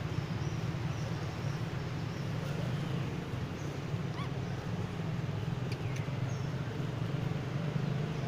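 A steady low rumble with a hiss over it, and a few faint, short high chirps.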